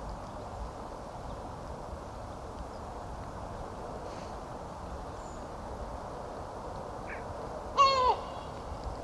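Steady hush of the river, with one loud, short bird call near the end that drops in pitch as it finishes, just after a faint high chirp.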